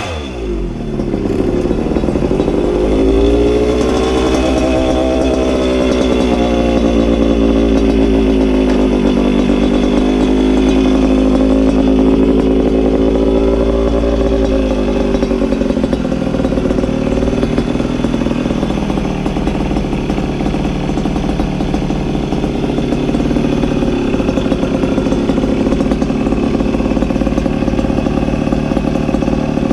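Puch Maxi moped's two-stroke single-cylinder engine running under way. Its pitch climbs over the first few seconds, holds steady, then eases a little about halfway through. A low wind rumble on the microphone fades out about halfway through.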